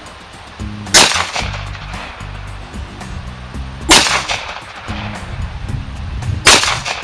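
Three shots from a Taurus TCP .380 ACP pocket pistol, a few seconds apart, each a sharp crack. Funk background music plays under them.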